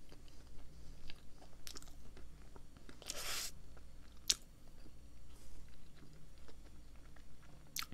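Close-up mouth sounds of a person chewing a bite of a creamy peanut-butter doughnut: soft wet clicks and smacks, with a short hiss about three seconds in and a sharp click just after.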